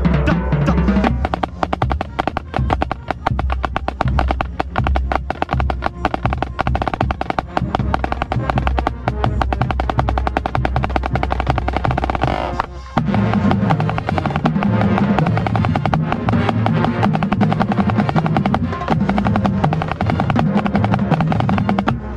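Marching band playing, heard from within the snare line: fast snare drum strokes and rolls over sustained brass and bass notes, with a short break about 13 seconds in.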